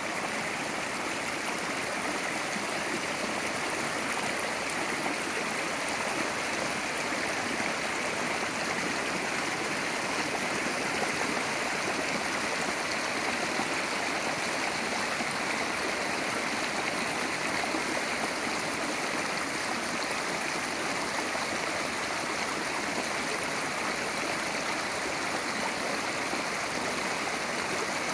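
Small mountain creek swollen by rain, its water rushing and splashing over rocks in a steady, unbroken flow.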